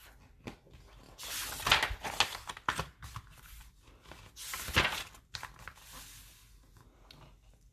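Paper and book-cover rustling and crinkling as a picture book is handled and its pages turned, in several short bursts, the strongest about two seconds and five seconds in.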